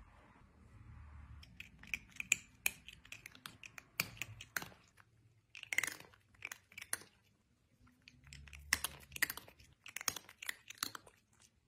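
A cat chewing: faint, irregular bursts of wet mouth clicks and small crunches, in clusters with short pauses between.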